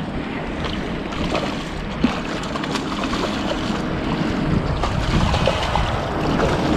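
Strong wind buffeting the microphone, over the steady wash of waves in a very high tide.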